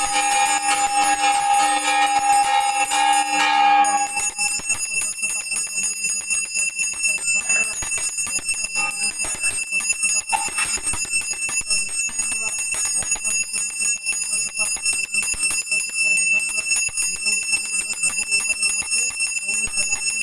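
Brass puja hand bell rung rapidly and continuously during the bathing of the deity. For the first four seconds a loud, steady held tone sounds over it, then stops abruptly.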